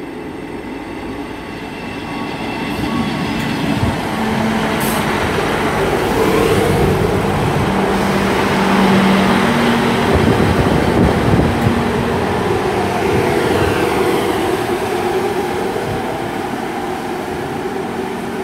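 Class 158 diesel multiple unit pulling out of the station, its underfloor diesel engines working hard under power. The sound builds to a peak about halfway through, then slowly fades as the train draws away.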